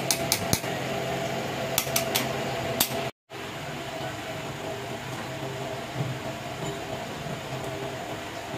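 A machine running with a steady hum, with several sharp knocks in the first three seconds. The sound cuts out for a moment about three seconds in, then the hum carries on.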